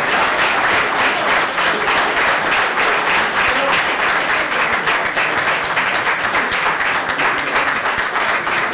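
Audience applauding, a steady round of many hands clapping.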